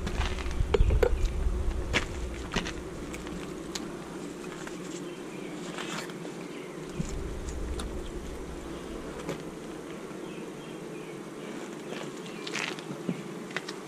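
Honey bees buzzing steadily over an open hive, with occasional sharp clicks and knocks from the hive tool and wooden frames being handled. A low rumble runs through the first few seconds.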